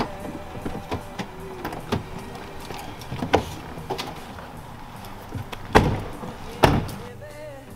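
SUV doors being unlatched and opened with a series of clicks and knocks, then two doors shut with heavy thumps about a second apart near the end.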